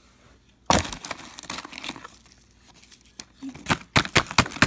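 Cardboard McDonald's chicken nugget box crinkling and rustling as fingers handle it and pick up a nugget. There is one sharp crackle about a second in, then a quick run of crackles near the end.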